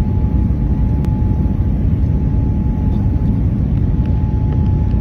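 Cabin noise inside a Boeing 787-9 airliner in flight on approach: a steady low rumble of engines and airflow, with a faint steady tone running through it.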